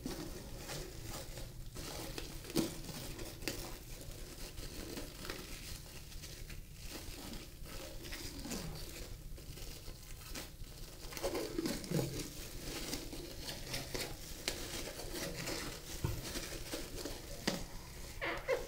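Metallized plastic film and foil from the winding of a 220 V AC film capacitor crinkling and crackling as it is pulled off the roll by hand, with a few louder crackles.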